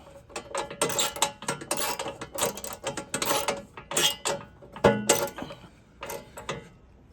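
Ratcheting socket wrench clicking in short strokes with light metal clinks as nuts are tightened; the clicking dies away about five and a half seconds in.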